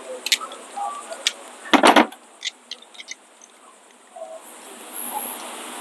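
Scattered light clicks and knocks with one loud thump about two seconds in, typical of tools and gear being handled.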